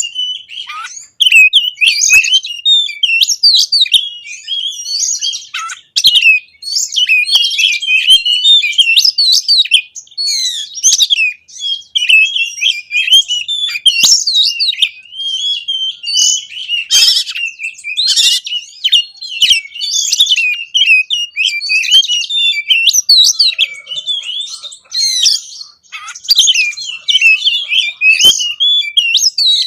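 Oriental magpie-robin (kacer) singing a loud, continuous, varied song of rapid whistles and chattering phrases with mimicked notes mixed in, broken only by brief pauses. This is the full, vigorous 'gacor' song that bird keepers play to provoke other kacer into singing.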